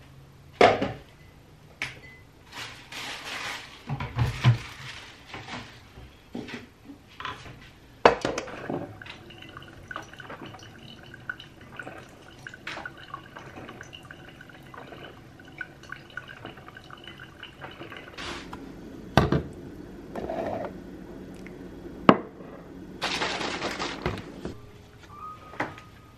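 Washing up at a kitchen sink: ceramic mugs knocking against the sink and counter, with short runs of tap water and scattered sharp clunks.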